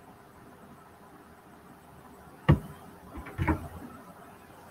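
A single sharp computer mouse click about halfway through, followed by a few softer, faint clicks and rustles over low room tone.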